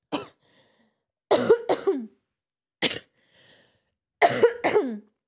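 A person coughing repeatedly: short single coughs and two double coughs, separated by silences.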